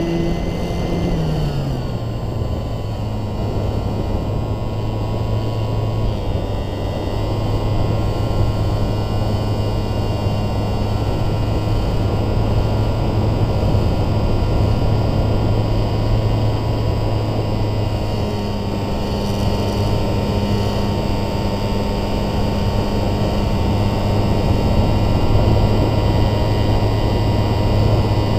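Radio-controlled model airplane's motor and propeller, heard up close from the onboard camera, running at steady high throttle in flight. Its pitch eases down slightly a second or two in, then holds nearly level.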